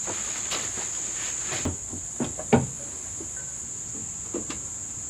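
Crickets chirring in a steady, high-pitched trill, with a few scattered knocks and taps, the loudest about two and a half seconds in.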